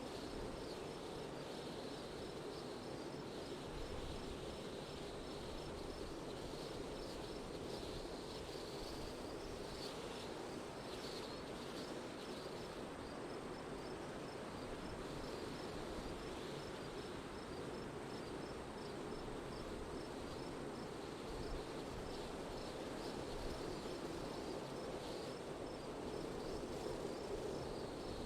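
Steady wind noise, with a faint, evenly repeating high chirp over it.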